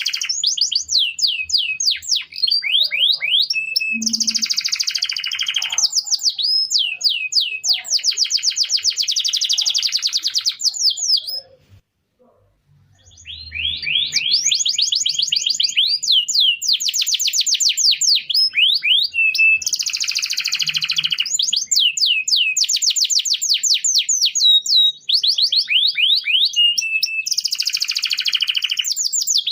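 Domestic canary singing: long, fast trills of rapidly repeated notes, one run after another, with a break of about two seconds near the middle.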